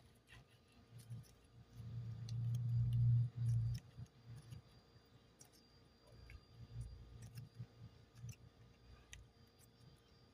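Close-up handling sounds of modelling clay being worked by hand: scattered small clicks and ticks with low, dull knocks, loudest for a couple of seconds about two seconds in.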